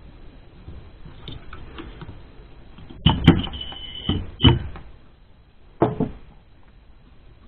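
Fan motor of a Wolf CWL 300 ventilation unit being worked loose from its fan wheel by hand: a few sharp clunks and a short high squeak of parts rubbing about halfway in, then a single knock as the motor is set down on the wooden workbench.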